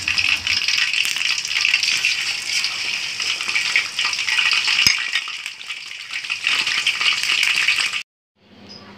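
Pieces of boiled chicken sizzling and crackling in hot oil in a wok. The sizzle cuts off suddenly near the end.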